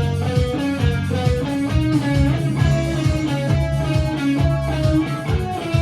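A live band playing an instrumental passage: electric guitar picking a melodic line over bass guitar and a steady beat, all through a venue PA.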